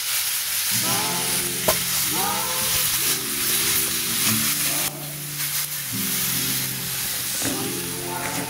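Meat sizzling steadily in a metal frying pan over an open wood fire, with a song with singing playing over it.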